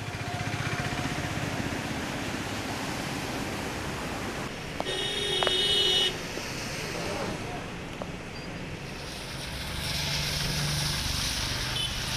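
Street traffic on rain-soaked roads: a steady hiss of tyres on wet tarmac and passing vehicle engines. A horn sounds for about a second around the middle.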